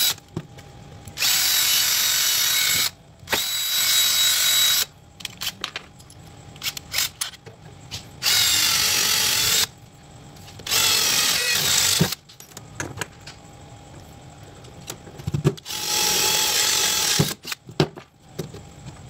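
Bosch 12 V cordless drill drilling holes in a metal mounting plate, running in five short bursts of about a second and a half each. Small clicks and knocks come between the bursts.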